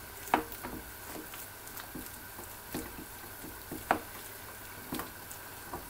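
A ladle mashing boiled tapioca in a steel pot, giving soft, irregular knocks and scrapes against the pot, about one every half second, the clearest near the start and about four seconds in. A faint steady hum lies underneath.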